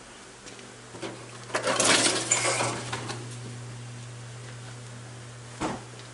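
Clatter and rattling of a box and items being lifted off a steel shop cart's sheet-metal shelf, from about one and a half to three seconds in, then a single knock near the end. A steady low hum runs underneath.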